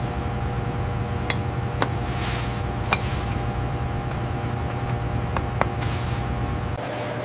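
A steady machine hum with a few sharp clinks and two short hissing sprays over it; the hum drops near the end.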